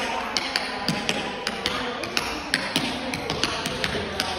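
Tap shoes striking a wooden floor: sharp metallic clicks, about three or four a second, in a dance rhythm.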